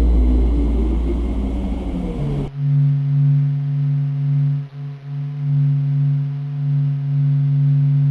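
Sonified space recordings of planets, played back to back: a deep, noisy rumble that cuts off sharply about two and a half seconds in, replaced by a steady, low humming drone with overtones that swells and fades slowly, like a singing bowl.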